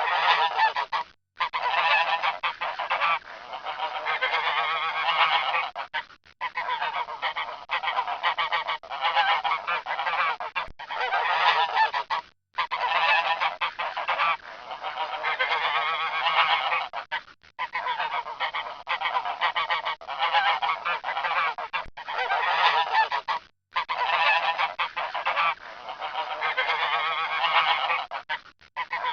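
Swans calling over and over, in stretches of about five seconds broken by brief gaps.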